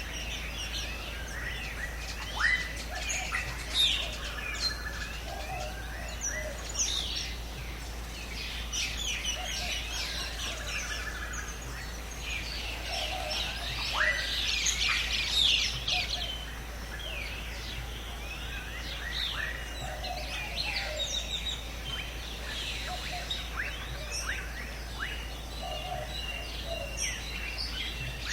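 Many birds chirping and calling at once in a dense chorus of quick downward-sweeping whistles and short chirps, busiest for a few seconds around the middle.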